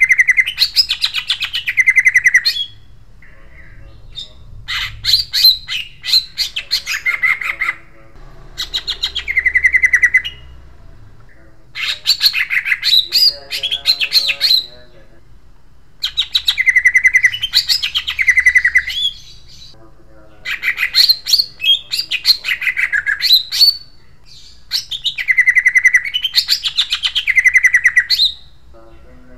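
Greater green leafbird (cucak ijo) singing a harsh, sharp, rolling song. It comes in about seven phrases of rapid rattling notes, each two to three seconds long, with short pauses between them.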